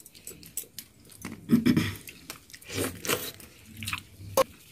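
Chewing and eating sounds from people eating a meal with their hands, with scattered small clicks and knocks.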